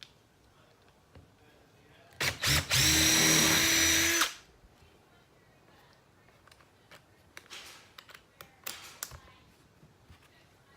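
Power drill whirring in two quick blips, then running steadily at an even pitch for about a second and a half before stopping abruptly, while piloting or screwing down deck boards. Faint clicks and knocks follow.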